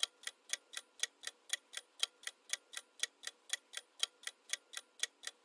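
Countdown-timer sound effect: a clock ticking about four times a second, steady and even.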